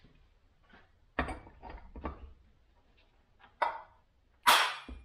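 Metal knocks and clanks from a flywheel knocker tool on a Stihl MS500i chainsaw's crankshaft, being struck to free the flywheel from the shaft. A few separate blows, the loudest and sharpest near the end, ringing briefly.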